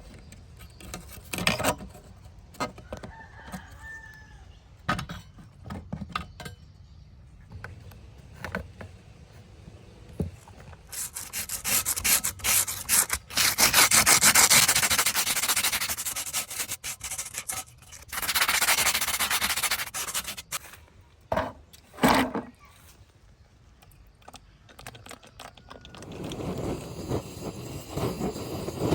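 Scattered clicks and knocks of parts being handled, then about ten seconds of loud, fast rubbing strokes on a hard surface, as in hand sanding or scrubbing during restoration of a car amplifier; a low rumble rises near the end.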